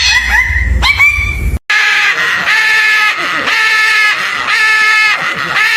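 A bird calling: short rising calls over a low rumble, then after a cut a run of repeated pitched calls, each under half a second, coming about once or twice a second.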